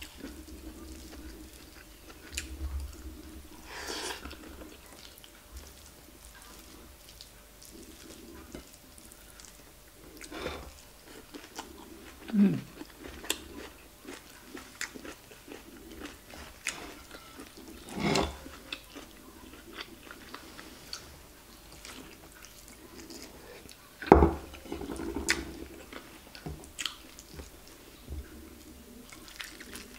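Close-up chewing and mouth sounds of a person eating rice, fried egg and stir-fried greens by hand: soft smacks and many small clicks, broken by a few louder sharp sounds, one about a third of the way in, one just past the middle and one near the end.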